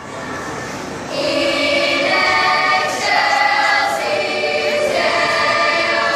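Middle-school choir of boys and girls singing together in sustained notes, softer at first and swelling louder about a second in.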